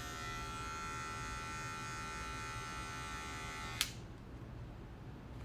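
Electric hair clippers running with a steady buzz, switched off with a click about four seconds in.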